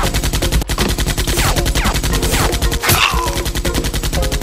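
Rapid machine-gun fire from a rotary minigun, a video-game-style sound effect: a fast, even stream of shots without a break.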